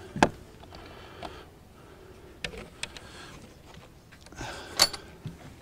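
Light clicks and knocks of composite plastic beehive parts and tools being handled on a table, with one louder knock near the end as a flat hive board is lifted and set against the hive.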